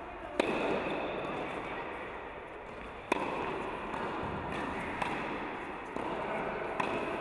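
Tennis racket hitting the ball, sharp cracks that ring on in an indoor tennis hall: a loud one about half a second in as a serve is struck, another about three seconds in, and lighter hits later.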